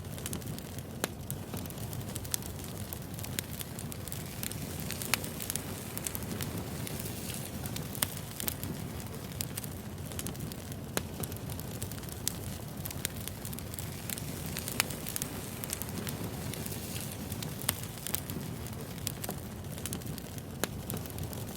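Wood fire burning steadily, the logs crackling and popping at irregular moments over a low, even rumble of the flames.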